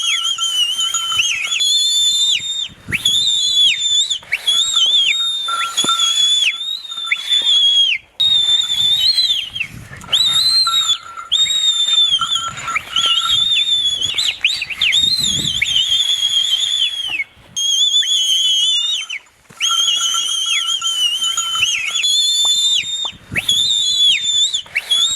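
Shrill, warbling whistle blasts, each a few seconds long with the pitch dipping at its end, repeated with short breaks. This is the whistling used to rouse a Jallikattu bull into its 'dance'.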